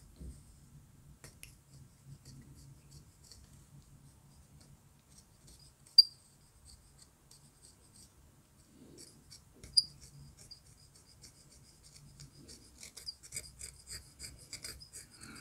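Small needle file rasping on the edge of a thin laser-cut wooden ship-model part, filing off the leftover cutting tabs and laser charring, in light quick strokes that get faster and louder near the end. Two sharp clicks sound about six and ten seconds in.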